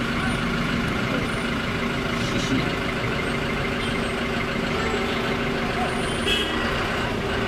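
Bus engine running steadily with a low hum, heard from inside the passenger cabin.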